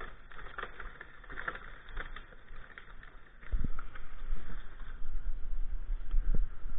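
Footsteps and rustling in brushwood and snow, picked up by a helmet-mounted camera microphone. About halfway in the sound gets louder, with low rumbling knocks and a few thumps as the camera is jostled.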